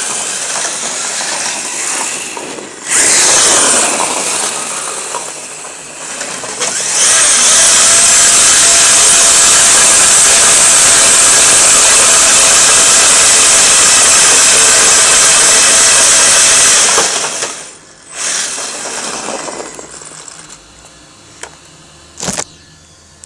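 An HSP 1/10-scale RC drift car with an EZ Run 5.5T brushless motor, its motor whining and tyres scrubbing as it speeds up and drifts on concrete. The pitch falls sharply about three seconds in. A loud steady rushing hiss then lasts about ten seconds before the car slows and the sound drops away, with a couple of short clicks near the end.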